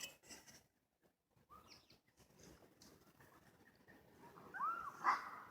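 Faint animal calls: short chirps that rise and fall in pitch, one about a second and a half in and several more close together near the end. A brief louder rustle-like burst comes about five seconds in.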